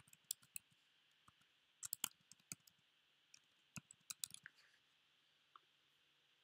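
Faint, sharp computer mouse clicks, scattered irregularly and in quick little clusters, with one last click near the end.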